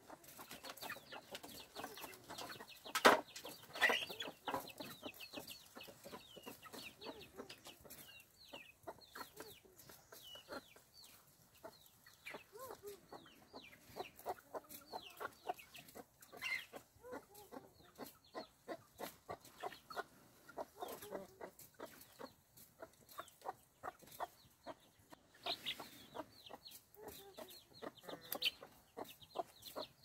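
Domestic chickens, hens and a rooster, clucking as they peck at scattered grain. A sharp knock about three seconds in.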